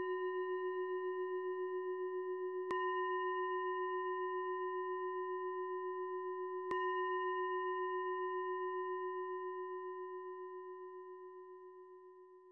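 A meditation singing bowl rings with a wavering, beating hum. It is struck again twice, a few seconds in and about halfway through, then slowly dies away toward the end.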